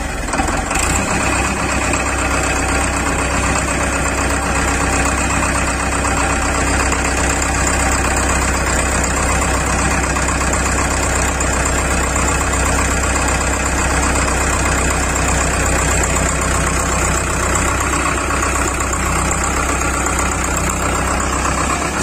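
Powertrac Euro 55 tractor's diesel engine running steadily close by, with an even low hum and no revving.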